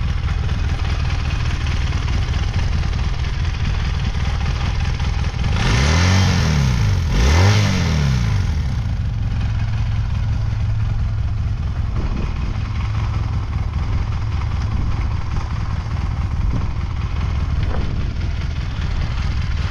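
1981 Honda Twinstar 200's parallel-twin engine idling steadily. It is revved twice about six seconds in, pitch rising and falling each time, then settles back to idle.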